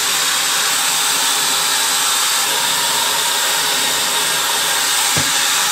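Handheld hair dryer blowing steadily on damp hair, a loud, even rush of air, with one brief low bump near the end.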